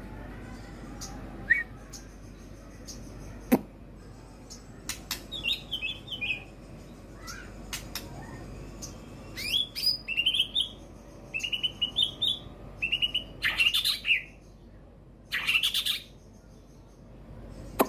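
White-rumped shama (murai batu) giving short chirps, quick trilled phrases and clicking notes, with two louder harsh bursts later on: the relaxed chattering that keepers call ngukluk, rather than full song.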